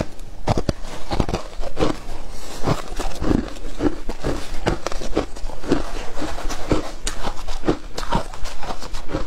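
Shaved ice being chewed in a full mouth: a loud, irregular run of crisp crunches, several a second.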